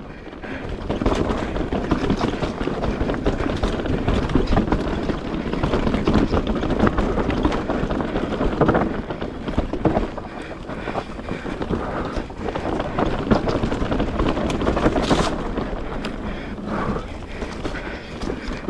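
Mountain bike riding over rocks and roots: many small knocks and rattles over a steady rush of wind on the microphone.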